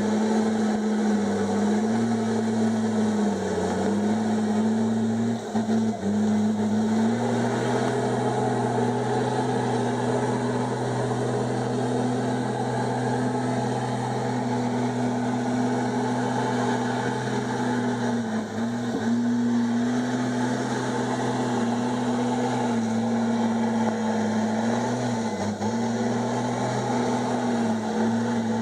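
Komatsu D51EX bulldozer's diesel engine running steadily under load, its pitch sagging briefly a few times as the machine works.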